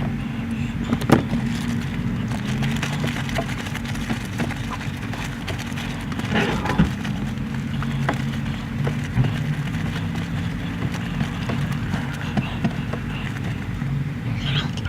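A steady low mechanical hum with scattered light clicks and knocks, the sharpest about a second in.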